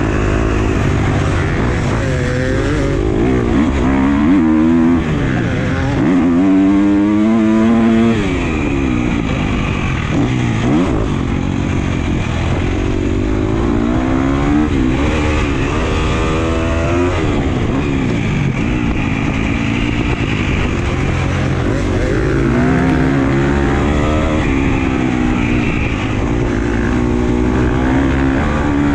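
Husqvarna FC250 motocross bike's 250 cc four-stroke single-cylinder engine under hard riding, its pitch climbing on the throttle and dropping back again and again as the rider accelerates and shifts through the gears.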